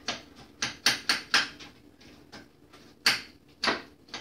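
Metal spoon striking and crushing graham crackers in a small bowl: sharp knocks against the bowl, a quick run of four about a second in, then two more near the end.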